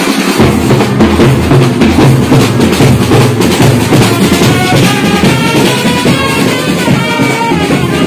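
Marching band playing loudly: large bass drums beaten in a steady, fast rhythm, with a trumpet playing a tune over them from about halfway through.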